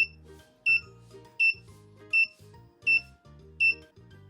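Background music with a steady beat: a short, high beeping note on each beat, about three every two seconds, over soft low chord notes that change with the beat.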